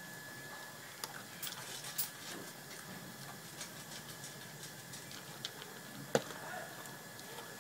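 Shetland Sheepdog eating from a plastic basin: scattered crunches and clicks of food being chewed and knocked against the bowl, the loudest about six seconds in.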